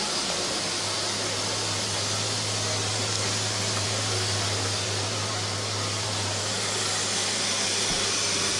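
Small steam locomotive standing with a steady hiss of escaping steam, over a low steady hum.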